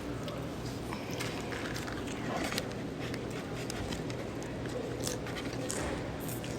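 A woman hiccupping slowly: short, sudden hics about two and a half seconds in and again about five seconds in, over a steady low background hum.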